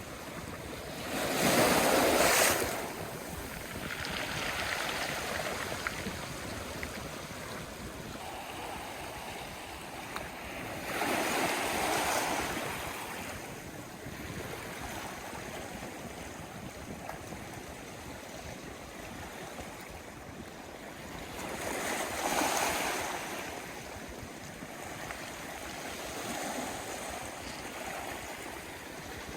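Sea waves washing onto the shore, three larger waves breaking about ten seconds apart with smaller swells between them over a steady wash of surf.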